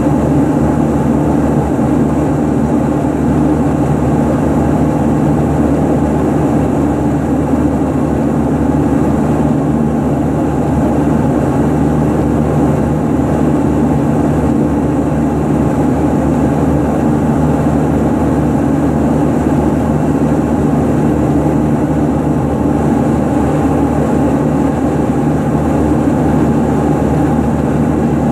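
Antonov An-24RV's Ivchenko AI-24 turboprop engines running at idle on the ground, heard from inside the cabin as a loud, steady drone with a low hum.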